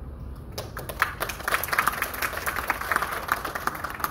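Audience clapping, breaking out about half a second in and going on as a steady patter of many hands.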